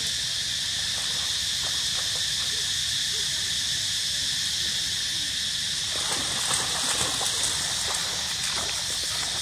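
Steady high-pitched insect chorus, with a spell of rustling and crackling clicks about six seconds in.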